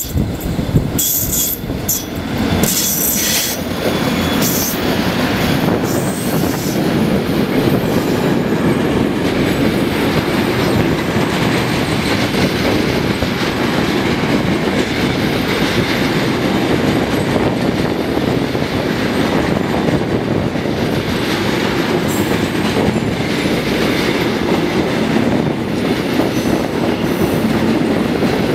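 A double-headed freight train passes close by: an EU07 and a Traxx electric locomotive hauling flat wagons loaded with rails. The locomotives go past with uneven, sharper noise in the first few seconds. Then the long string of wagons rolls by with a steady noise of wheels on rails.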